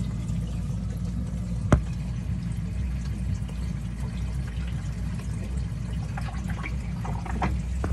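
Water running and splashing steadily in a saltwater aquarium's filter area as it overflows. A single sharp click comes about two seconds in, with a few fainter ticks near the end.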